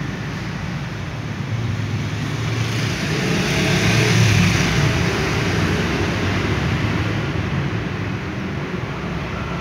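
Steady background road-traffic noise that swells louder about four seconds in and eases off again, as of a vehicle passing.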